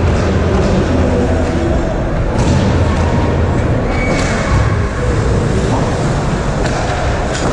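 Ice hockey game in an arena: a steady rumble of rink noise and spectator chatter, with several sharp clacks of sticks and puck.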